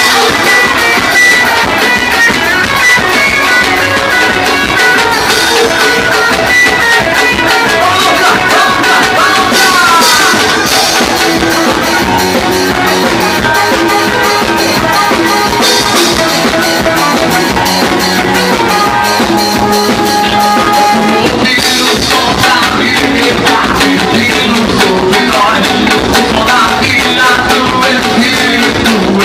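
Live band playing a gospel axé song: drum kit, guitar and singing, loud and steady.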